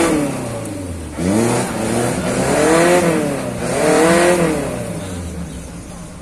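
Off-road 4x4's engine revved in about three surges, its pitch rising and falling, as the vehicle works its way through a rocky gully. The engine is under load on the obstacle.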